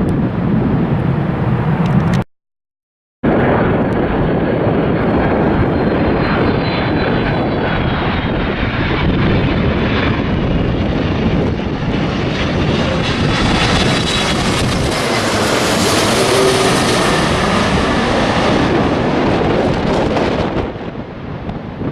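Jet airliner passing the microphone, a steady rushing engine noise that builds to a peak with a high whine about two-thirds of the way through, then fades. The sound cuts out completely for about a second near the start.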